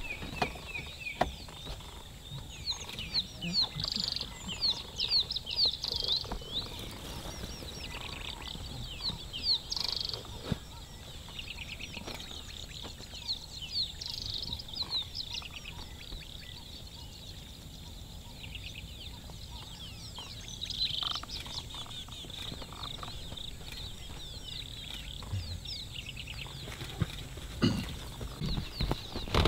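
Wild birds calling in quick runs of high chirps. The runs come in clusters every few seconds, over a steady low background.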